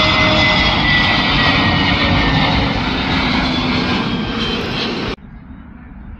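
Airbus A320neo jet passing low on final approach: loud, steady engine noise with a whine that slowly falls in pitch. It cuts off abruptly about five seconds in, leaving a much fainter rumble.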